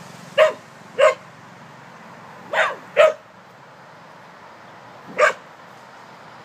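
Small terrier barking at a snake in the grass: five short, sharp barks, two in quick succession near the start, two more a few seconds in and a last one near the end.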